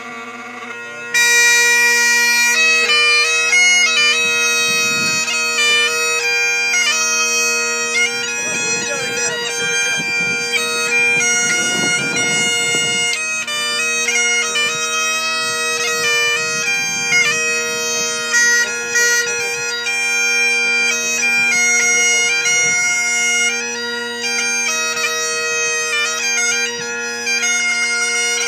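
Bagpipe playing a slow tune, the melody moving over steady unchanging drones; it strikes up at full volume about a second in.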